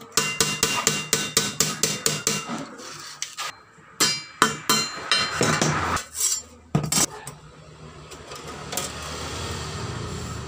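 Hammer blows on galvanized iron sheet over a steel I-beam anvil, forming a bend: a fast run of about a dozen ringing metallic strikes, roughly four a second, then a few heavier, irregular blows. The striking stops about seven seconds in.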